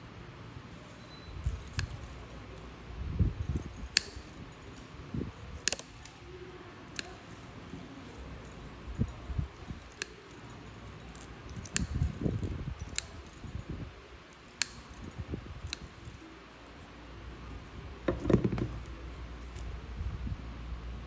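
A metal podiatry instrument clicking and scraping against a thickened, overgrown toenail: sharp irregular clicks about every second or two, with soft low thuds of handling between them.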